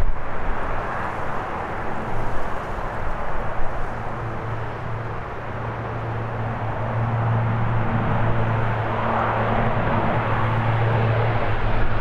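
Saab 340 twin-turboprop at takeoff power, climbing out and passing overhead: a broad rushing engine and propeller noise with a steady low propeller hum that grows stronger a few seconds in, getting louder toward the end.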